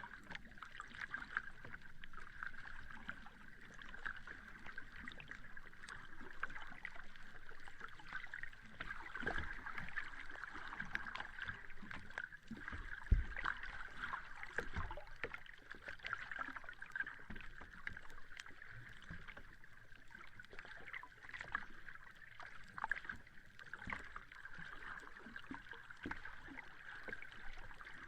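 Sea water washing and lapping at the shore, heard as a steady fizzing hiss full of small crackles, with one low thump about halfway through.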